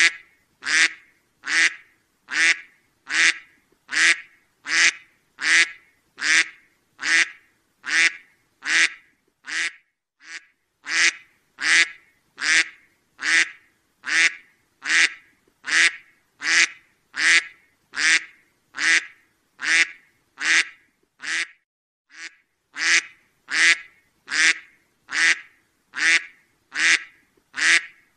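Duck quacking over and over, single short quacks a little more than one a second, evenly spaced, with two brief pauses.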